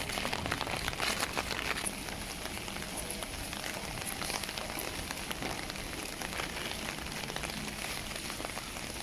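Heavy rain falling steadily: an even hiss flecked with the ticks of single drops striking hard surfaces.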